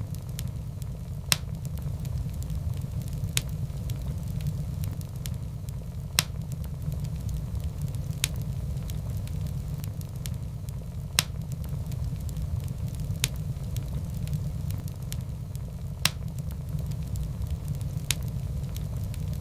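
Wood fire crackling in a fireplace: a steady low rumble with sharp pops every two to three seconds.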